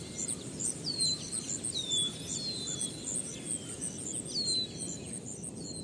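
Nature ambience of birds and insects: a rapid, high-pitched chirping keeps up throughout, while a bird gives a short whistle that slides downward, repeated several times.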